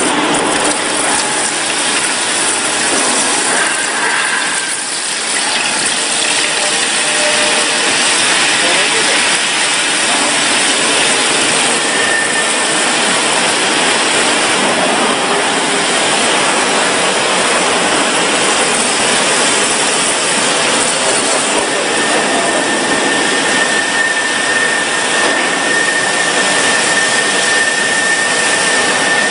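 Steady, loud hiss of quench water spraying onto a red-hot steel shaft under an induction coil, with steam coming off. A thin steady high whine joins in briefly about twelve seconds in and again for the last third.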